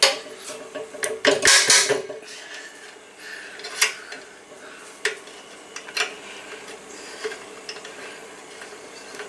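Metal clinks and taps of a wrench and metal tubing handled against a compressor pump head and its fittings: a quick run of clinks about a second and a half in, then single clinks every second or so.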